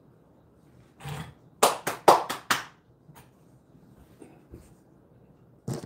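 Hand claps: a quick run of five sharp claps about two seconds in, with one more clap near the end.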